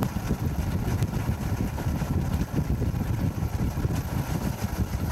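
Boat engine running with a steady low rumble.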